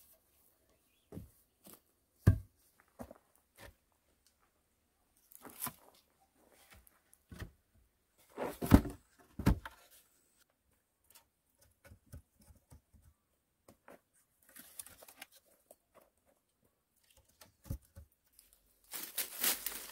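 Split wooden planks knocking and clattering as they are handled and set upright against a log pole, with scattered light thuds and rustling. The loudest knocks come about two seconds in and in a cluster around nine seconds; a busier rustling starts near the end.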